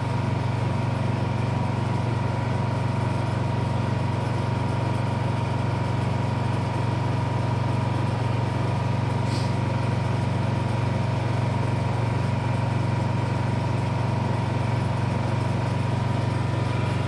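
Honda portable generator's engine running steadily under the light load of a battery charger, with a steady higher tone above the low hum.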